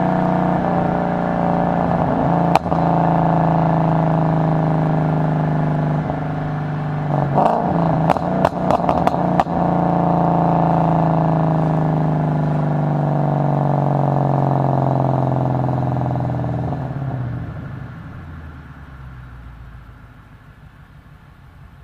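2012 Mustang GT's 5.0 V8 running through a JBA axle-back exhaust with cat deletes and an X-pipe, holding a steady note whose pitch slowly sinks. A cluster of sharp pops or clicks comes about seven to nine seconds in, and near the end the engine note drops away to a much quieter hum.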